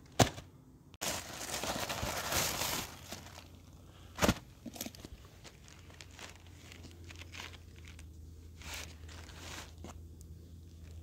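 Paper and cardboard packaging rustling and crinkling as items are unpacked and handled, with a sharp click right at the start and another knock about four seconds in.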